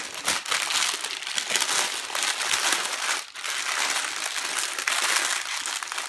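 Parchment paper crinkling and rustling as it is folded over and rolled around a soft log of fudge paste, with a short break about three seconds in.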